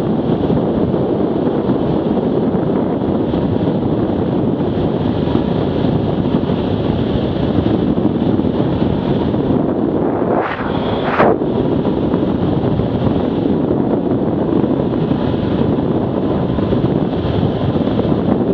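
Heavy wind rushing over the microphone of an Arctic Cat 650 H1 ATV moving fast, with its engine running under the rush. About ten seconds in, a short sound drops in pitch and then rises sharply.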